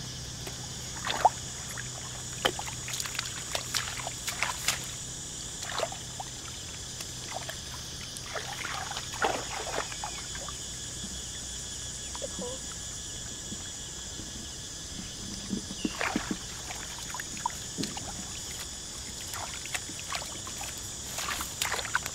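Hands and bare feet splashing and squelching in shallow muddy water, in scattered small splashes and knocks, over a steady high hiss.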